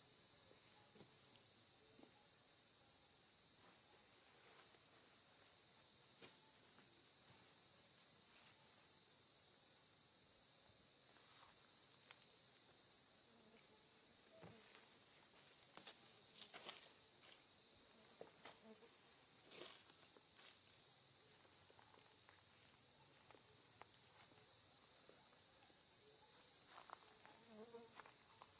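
Steady high-pitched insect chorus, unbroken throughout, with a few faint scattered ticks and rustles.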